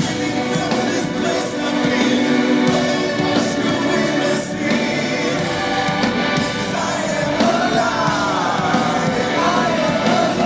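Live rock band playing loud, with drums, bass and keyboards under a male lead singer. In the last few seconds the singer holds a long, wavering note that bends in pitch.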